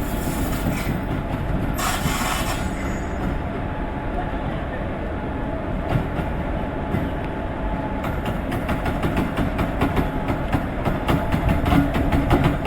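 WCAM-3 electric locomotive and train running at a station, a steady rumble with a brief burst of hiss about two seconds in. A fast run of sharp clicks grows louder over the last few seconds.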